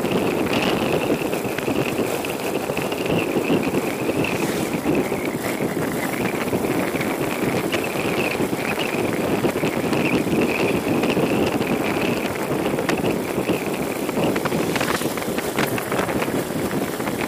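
Yamaha motorcycle's engine running steadily while riding at cruising speed, mixed with road and wind noise.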